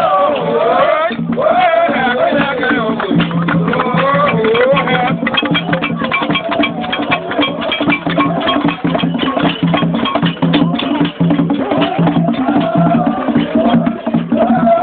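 Traditional Jola funeral music: voices singing a wavering melody over steady low tones. Fast, dense percussion strikes come in strongly from about five seconds in.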